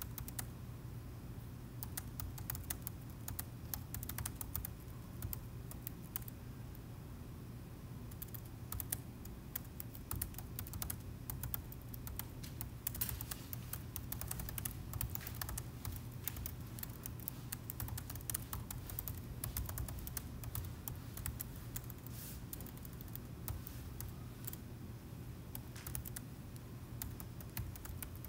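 Typing on a laptop keyboard: quick, irregular keystrokes in runs with short pauses, over a steady low hum.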